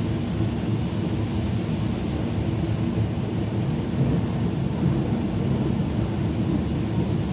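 Heavy rain shower falling steadily: an even, low rushing noise.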